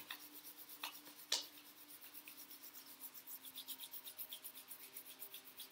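Hands rubbed briskly palm against palm: a fast, regular swishing of skin on skin, with a couple of sharper strokes in the first second and a half.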